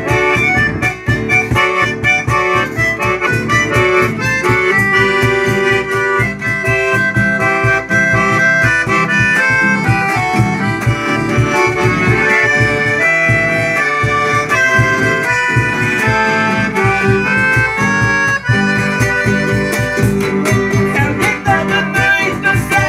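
Universal piano accordion playing a melody of held, quickly changing notes, accompanied by a strummed acoustic guitar.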